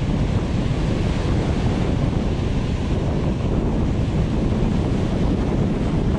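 Wind buffeting the microphone over the steady wash of sea waves breaking and foaming over shoreline rocks.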